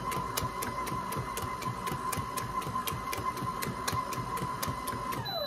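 Electric stand mixer running steadily at a raised speed, mixing thin chocolate cake batter: a steady motor whine with a regular rapid ticking. Near the end the motor winds down with a falling whine, and a high beep starts.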